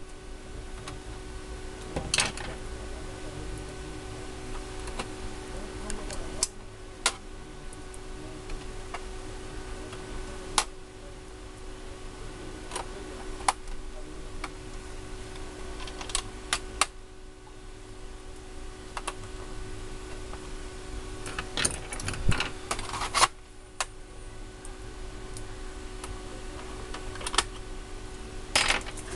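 Scattered sharp clicks and clinks of hand tools being handled on a PlayStation 4's metal shield plate during disassembly, a cluster of them about two-thirds of the way through, over a steady hum.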